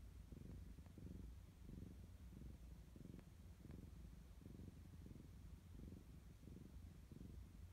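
Domestic calico cat purring faintly while dozing, the low purr swelling and fading in even pulses.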